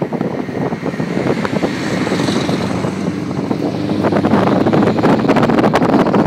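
Scania truck with a straight-through open exhaust, its engine giving a loud, rough, crackling rumble as it passes close by and pulls away, growing louder about four seconds in. Wind buffets the microphone.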